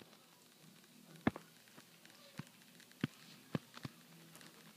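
Faint, irregular clicks and taps, about half a dozen in a few seconds, over a low steady hum.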